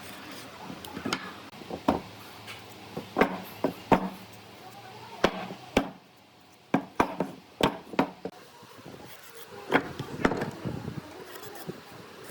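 Irregular sharp knocks and thuds on wood, a dozen or more spaced unevenly, with a short lull about halfway through.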